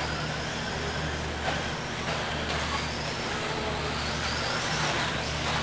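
High whine of an electric RC car's 21.5T brushless motor, rising and falling as it is driven round the track, over a steady hum and hiss of room noise.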